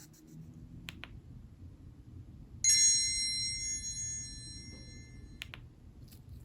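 Nokia N71 flip phone's speaker playing a single bell-like chime that starts sharply and fades out over about three seconds. Soft clicks come before and after it.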